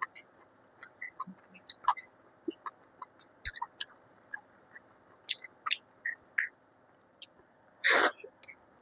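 Close-miked eating sounds: scattered wet mouth clicks and smacks of chewing, irregular and short, with one louder, longer mouth sound near the end.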